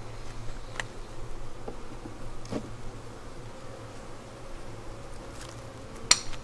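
Honeybees buzzing steadily around an opened hive, with a few light clicks and one sharp click near the end as the frames are handled.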